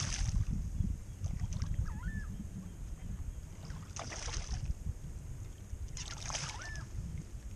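A hooked fish thrashing and splashing at the surface of shallow water, in three spells: near the start, about four seconds in, and again about six seconds in, over a steady low rumble.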